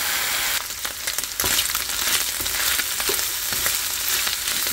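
Small chopped chicken pieces sizzling as they fry in a nonstick pan, with scattered scrapes and clicks of stirring. The sizzle dips briefly about a second in.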